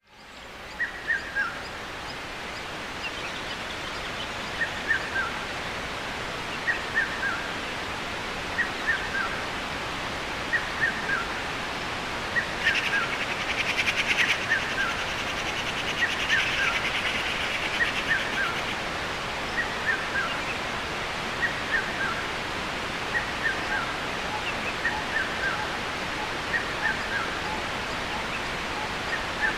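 The steady rushing roar of Athabasca Falls. Over it, a short chirping call of two or three quick falling notes repeats about every two seconds. A buzzy rattle joins from about 13 to 18 seconds in.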